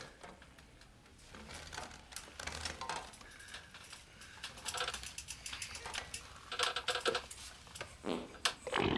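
A run of quick, irregular rattling clicks that grows louder and busier.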